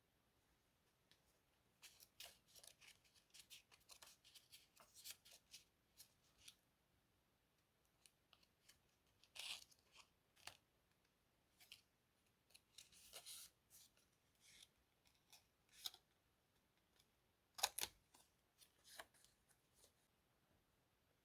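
Scissors snipping through magazine paper in short runs of quick cuts with pauses between them; the sharpest snip comes near the end.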